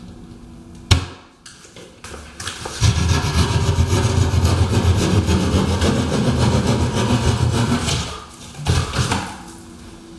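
A saw cutting through a wall, a steady rasping run of about five seconds with a shorter burst after it. A single sharp knock comes about a second in.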